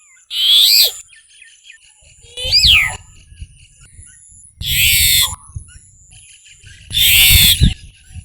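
Brahminy starling (Brahminy myna) calling: four short, loud calls about two seconds apart, each a quick run of gliding notes, with a low rumble under the later ones.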